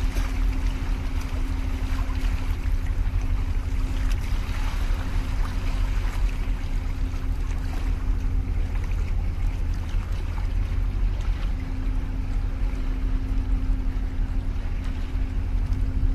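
Large container ship passing close, giving a steady deep rumble with a steady low hum that fades out for a few seconds midway and comes back. Wind on the microphone and washing water lie over it.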